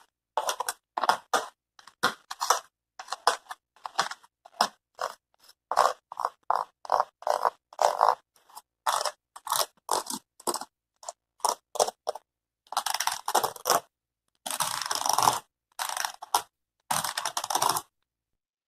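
A thin stick scraped and tapped across the textured materials of a sound collage: a run of short, dry scrapes and crunches, two or three a second, then several longer rasping strokes in the last five seconds.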